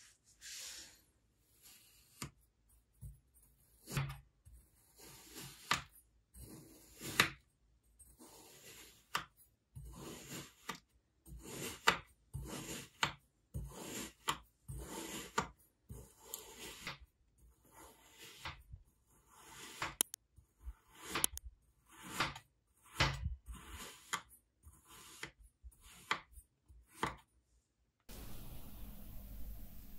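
A knife slicing again and again through a kinetic sand cake, each cut a short gritty crunch, about one every second, some in quick runs. Near the end the cutting stops suddenly and a faint steady hiss with a low hum follows.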